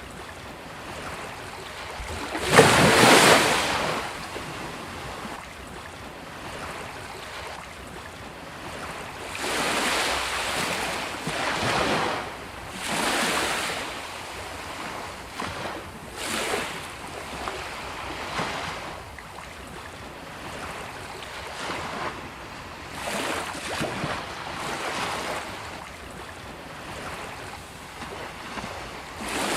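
Sea waves breaking and washing up a beach, one surge after another at irregular intervals of a few seconds. The loudest wave breaks about two and a half seconds in.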